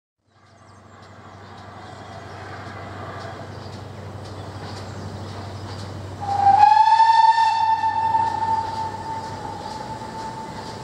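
GWR 4200-class 2-8-0T tank engine No.4247 running with its train, a steady rumble with faint ticks. About six seconds in, the steam locomotive gives one long whistle blast of a single pitch. It rises slightly at the start, holds steady for about four seconds and fades.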